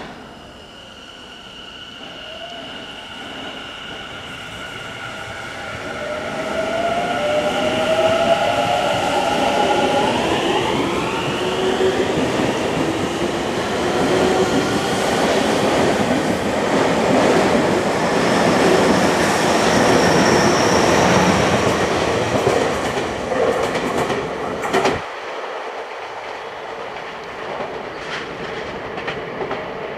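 Tobu 50050 series electric commuter train pulling away from a station platform. Its traction motors whine in steady tones, then glide upward in pitch about ten seconds in as it accelerates. The whine sits under building wheel-on-rail noise and clatter as the cars pass. Near the end the sound cuts suddenly to quieter train noise.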